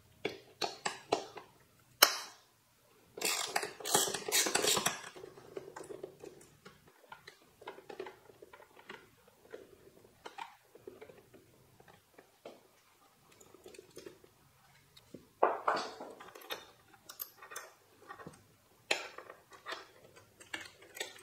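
Metal hand tool clicking and clinking on the snug 5 mm rear-fender bolts under a Kawasaki ZX-4RR's tail as they are worked loose: scattered light ticks, a sharp click about 2 seconds in, and denser rattling stretches a few seconds in and again near the three-quarter mark.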